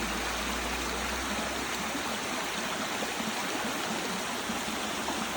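Forest stream running over rocks, a steady rushing and gurgling of water.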